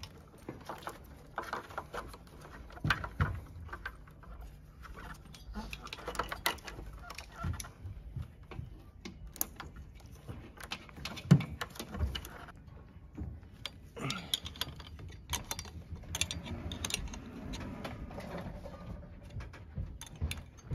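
Hands and tools working on a motorcycle's wiring and fittings: scattered clicks, rattles and rustling as connectors are unplugged and small metal parts handled, with one sharp knock about eleven seconds in.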